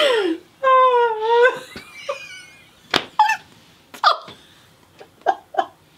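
A woman laughing hard: one long high-pitched squeal about a second in, then a run of short, high gasping laughs.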